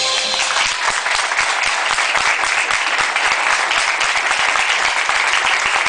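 Audience applauding: dense, steady clapping from a crowd. It starts as the band's last notes die away in the first half second.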